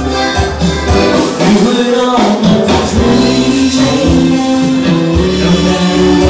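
Live band playing a Latin-style song, with a steady drum beat, bass and guitar and a singer's voice, heard loud from the dance floor.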